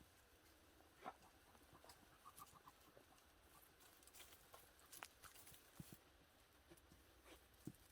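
Near silence, with faint scattered rustles and small sharp ticks on the forest floor.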